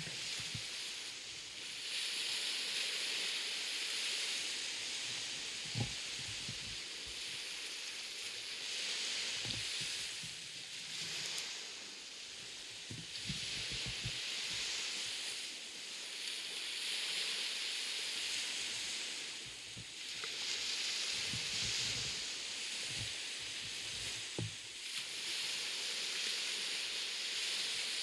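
Surf washing onto a sandy beach: a hissing rush that swells and fades about every four seconds. A few soft low thumps come between the swells.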